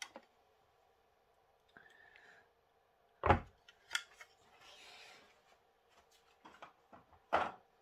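Scattered handling knocks and clicks, with a brief rub of plastic, as a model diesel locomotive is set down on a wooden tabletop and its hard black plastic transport base is handled. The loudest knock comes about three seconds in, another near the end.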